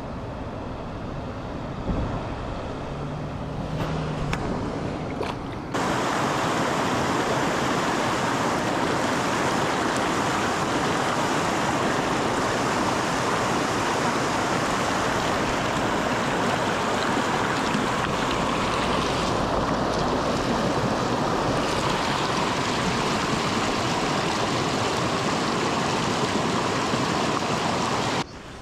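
Stream water running steadily over a riffle, a continuous rushing. It jumps abruptly louder about six seconds in and drops off suddenly near the end.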